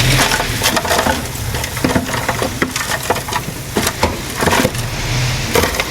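Small crawler bulldozer's diesel engine running under load, with frequent sharp clanks and cracking from the steel tracks and the soil being pushed.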